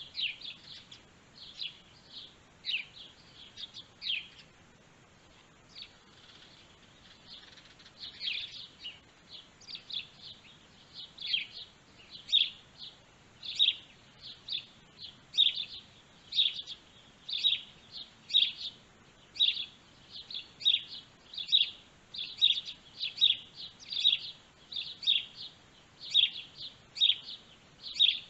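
Small birds chirping with short, high calls. The calls are scattered at first and fall away briefly about five seconds in, then come back and repeat steadily about once a second.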